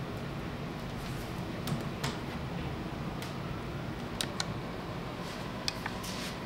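A handful of light clicks and taps from a laptop, cable and wireless mouse being handled, over a steady low hum.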